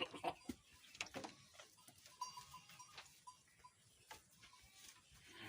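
Goats in a shed: faint scattered knocks and rustles of the animals moving, with a short run of faint, even ticks in the middle.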